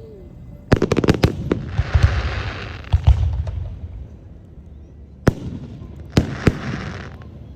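Aerial fireworks going off: a quick run of sharp bangs about a second in, then a crackling shower. Further single booms follow, the last with another crackle.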